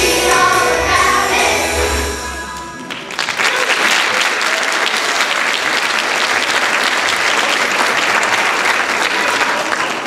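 Children's choir singing over instrumental accompaniment, the song ending about three seconds in, followed by audience applause.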